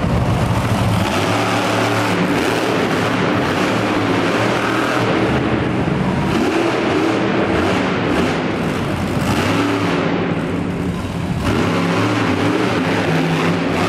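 Monster truck engine revving hard and running loud, its pitch rising and falling as the truck drives.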